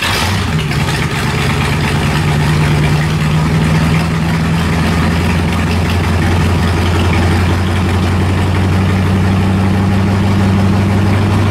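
1967 Ford Mustang GT Fastback's original V8 idling steadily.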